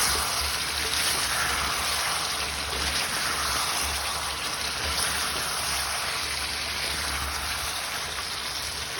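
Chicken masala curry frying in oil in a pan over a high gas flame, with its liquid cooked off: a steady sizzle.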